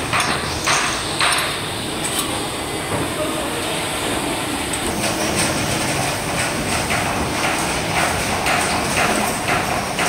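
Steady mechanical running noise of injection molding machines, with a few clanks and knocks, the loudest in the first second or two, as a molded plastic part is taken from the mold and the sliding safety door is worked.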